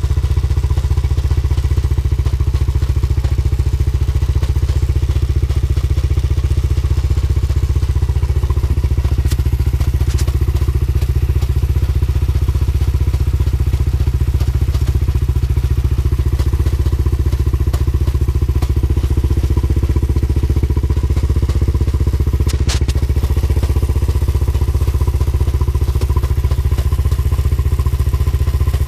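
Motorcycle engine running steadily in gear, turning the rear wheel on a paddock stand, with a heavy low rumble.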